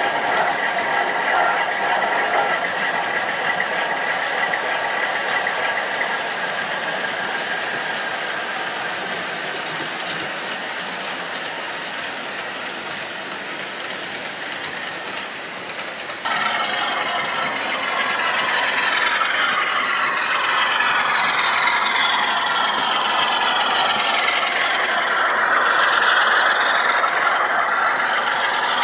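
Model diesel trains running on a model railway layout: a steady mechanical running hum, then an abrupt change about halfway through to overlapping rising and falling engine tones as a model Class 47 locomotive and its coaches pass a diesel multiple unit.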